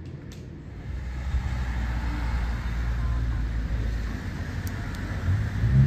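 A steady low rumble of a vehicle running, coming in about a second in.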